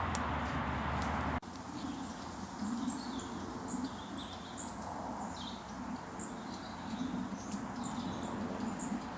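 A steady hiss cuts off about a second and a half in. After it, small birds chirp in short, high calls over a quiet woodland background.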